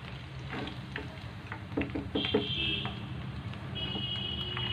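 Pieces of chicken pakodi frying in hot oil in a non-stick kadai, with a metal spoon clicking and scraping against the pan as they are lifted out. A thin high tone sounds briefly twice, about two seconds in and near the end.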